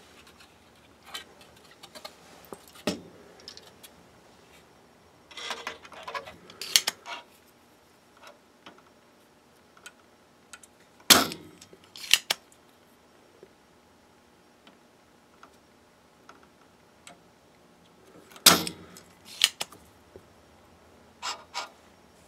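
Circuit board and hand tools handled on a metal workbench: scattered light clicks, taps and rattles, with sharp knocks about eleven, twelve and eighteen and a half seconds in.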